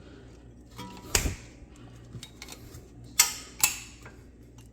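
Sharp metallic clicks and a knock from the brake caliper and old pad as the caliper piston is pushed back: one about a second in, then two close together a little after three seconds. The popping comes from the old brake pad's clip.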